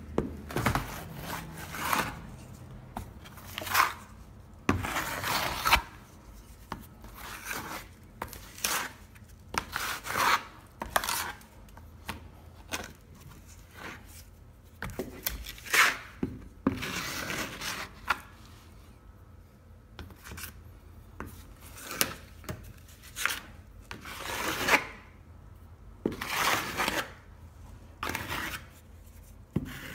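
Metal taping knife scraping joint compound into a crack in a plaster wall and working it on a metal mud pan. The strokes are irregular and rasping, some short and some drawn out up to about a second, roughly one every second or two.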